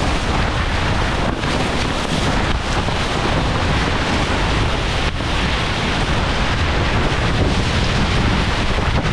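Steady wind noise buffeting the camera's microphone, with water rushing along the hull of a sailboat under way in strong wind.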